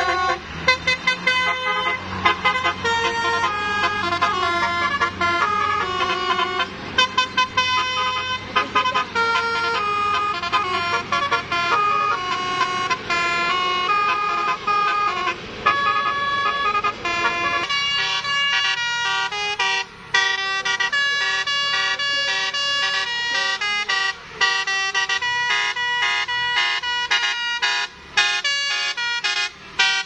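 Bus telolet horn playing a fast multi-note melody over the bus's running engine; a little over halfway through the engine rumble drops away and the horn goes on in short, clipped notes.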